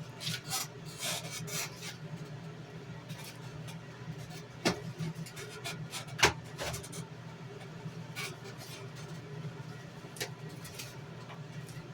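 Rustling and a few sharp knocks of objects being handled on a workbench, the loudest knock about six seconds in, over a steady low hum.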